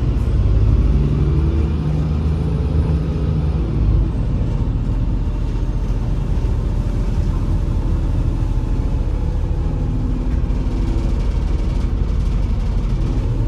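A MAZ-203 city bus heard from inside the cabin while under way: the engine running with road rumble and a faint high whine. It is louder for about the first four seconds, then settles to a steady drone.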